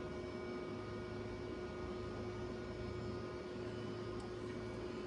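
Steady background hum with a few constant tones over a faint even hiss: room tone.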